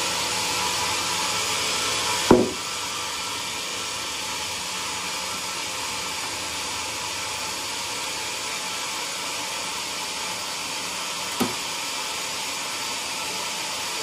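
Large band sawmill running steadily while a bayur timber beam is moved on its rail carriage, with two sharp knocks, one about two seconds in and one near the end. The running drops a little in level just after the first knock.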